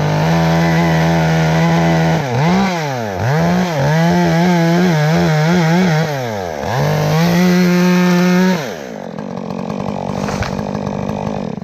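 Two-stroke chainsaw cutting at full throttle through a large section of sweet gum trunk. Its pitch sags and recovers a few times as the chain bites into the wood. About three-quarters of the way through, the throttle is released and the saw drops back to a quieter run.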